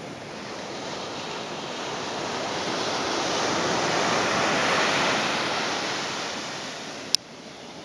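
Ocean surf washing on the beach, swelling to a peak about halfway through and then fading. A single sharp click sounds near the end.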